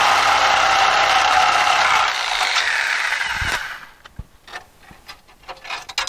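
Corded reciprocating saw cutting through the steel chassis frame rail, running steadily, then stopping about three and a half seconds in as the cut finishes. A few light metal clinks follow as the cut-out section is worked free.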